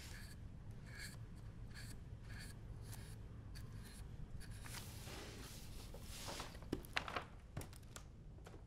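Paintbrush bristles wiped against the rim of a metal paint tin to strip off excess paint: faint scraping strokes, about two a second at first, then longer swishes and a few light clicks near the end.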